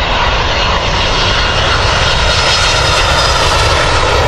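Twin-jet Airbus A319 airliner at takeoff thrust, lifting off the runway and climbing: a loud, steady rush of jet engine noise with a faint high whine, swelling slightly as it climbs.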